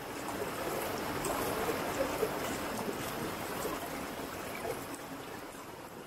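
Shallow river running over stones and small rapids: a steady rush of flowing water, easing off slightly near the end.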